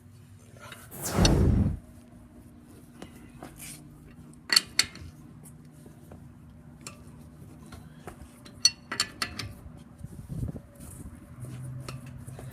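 Metal tools or parts clinking a few times, sharp separate clicks. A loud, brief rushing noise comes about a second in.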